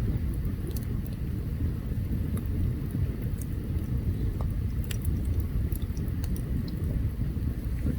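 Open campfire burning: sparse, sharp crackles and pops from the wood over a steady low rumble.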